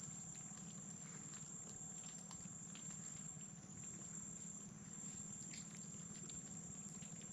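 Faint creekside ambience: a steady high-pitched drone over a low steady hum, with scattered small clicks.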